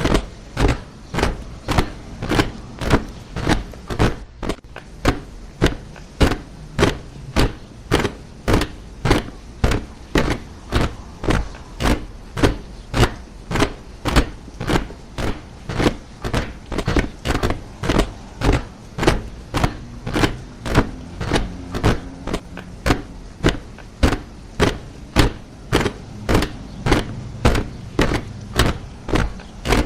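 A column of soldiers marching in step, boots striking the ground together in a steady tramp of about two steps a second.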